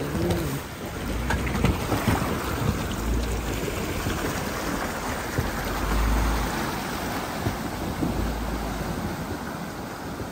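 A Jeep Wrangler fording a shallow creek: water swishing and splashing around its tyres as it pushes through, over the low running of its engine. Wind rumbles on the microphone now and then.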